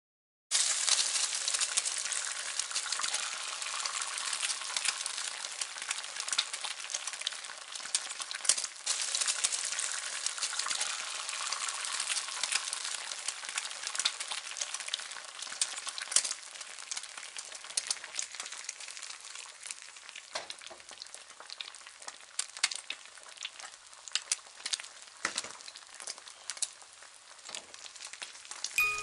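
Salmon fillets frying in hot oil in a pan: a dense sizzle full of small crackles and pops, loudest at first and slowly dying down.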